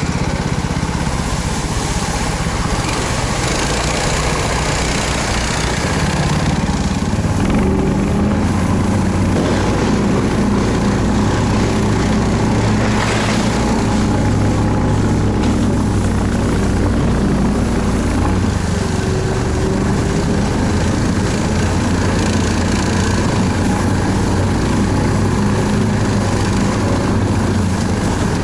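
A vehicle engine running steadily under way, growing louder and a little higher in pitch about six seconds in.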